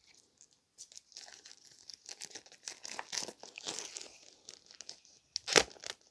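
Clear plastic shrink wrap being torn and peeled off a product box by hand, crinkling and crackling irregularly, with one sharp, much louder crackle near the end.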